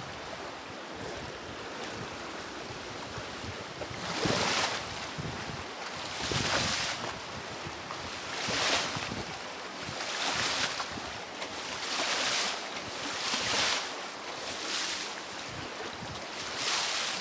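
Rough, choppy river water rushing steadily, with waves washing and splashing in louder surges about every two seconds. Wind is buffeting the microphone.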